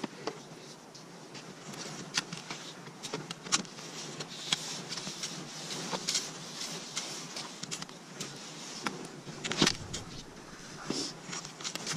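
Skis swishing and crunching through deep fresh snow, with irregular crunches and clicks from the skis and poles; the loudest comes about ten seconds in.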